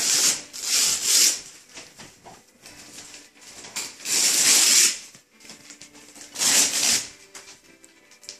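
Wrapping paper being torn off a tall gift box in a series of rips: one right at the start, another about a second in, a longer rip lasting about a second around four seconds in, and another near six and a half seconds, with quieter pauses between.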